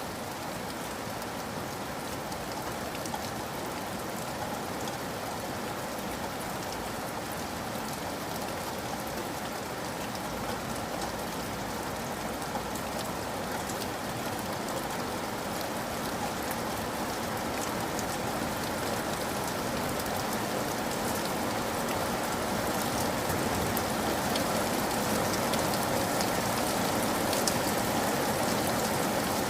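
Steady rain falling on a surface, a dense even patter of many drops with fine individual drop ticks, growing gradually louder toward the end.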